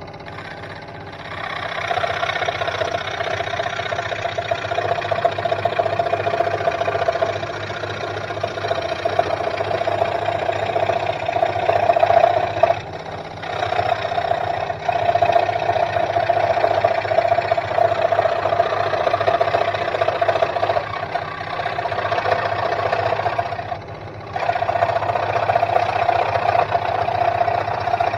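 Sealey SM1302 scroll saw running, its blade cutting through plywood: a steady motor hum under a louder cutting noise. The cutting sound drops briefly twice, about halfway through and again near the end.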